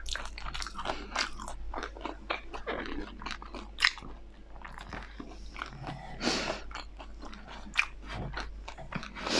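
Close-up chewing and crunching of a crispy fried spring roll: irregular crisp crackles, a few louder crunches about four and six and a half seconds in.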